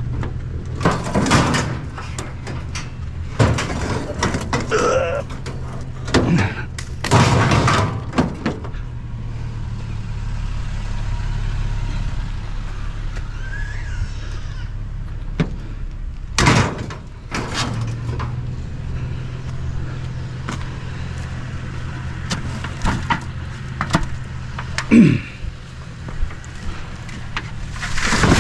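A vehicle engine idling steadily. Repeated knocks and bangs of scrap and vehicle doors being handled sound over it.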